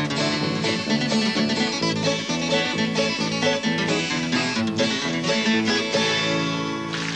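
Instrumental country music with plucked strings picking a busy run of short notes over a steady bass.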